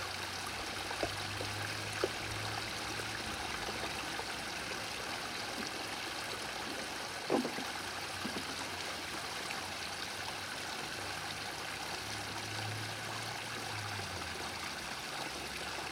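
Small floating pond fountain bubbling: a steady trickle and splash of water. A short faint chirp sounds about halfway through.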